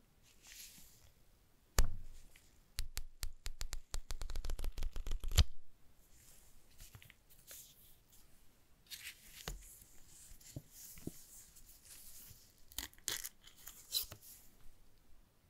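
Paper leaflet handled by gloved hands: a sharp snap, then a fast run of about twenty crisp paper clicks lasting some three seconds. After that comes soft paper rustling, with a crackle near the end as a sticker is peeled from its backing sheet.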